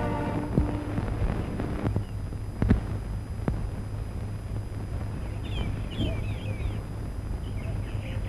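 Worn early sound-film soundtrack: a steady low hum and crackle with a few sharp pops, after a held music note ends about a second in. Near the middle, a cluster of short high chirps.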